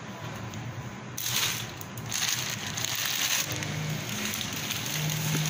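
Clear plastic bag crinkling and rustling as it is handled, starting about a second in and going on in patches, over a faint low hum.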